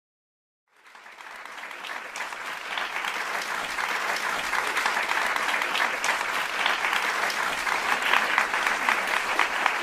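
Applause from many people clapping, fading in about a second in and growing louder, then holding steady.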